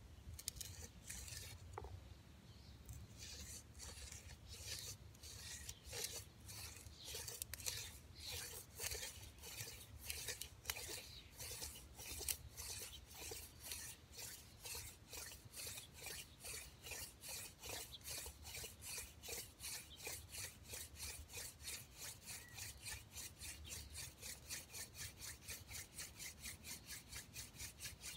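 Hand drill friction fire: a mullein spindle spun back and forth between the palms, its tip grinding in the notch of a yucca hearth board with a dry, scratchy rub on every stroke. The strokes start irregular and quicken into a fast, even rhythm of several a second.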